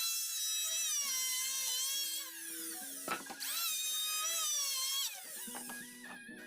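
A small high-speed power tool whines as it runs twice, each run about two seconds, spinning up and winding down. A sharp click comes between the two runs.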